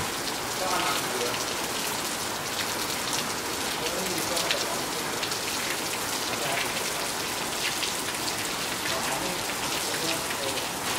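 Steady rain falling on a hard surface: a dense hiss of many small drop ticks, with faint voices in the background.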